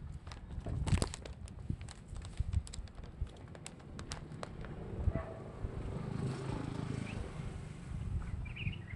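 Footsteps on gravel and grass, a scatter of light crunches and taps, with a low steady rumble from about five seconds in and a few bird chirps near the end.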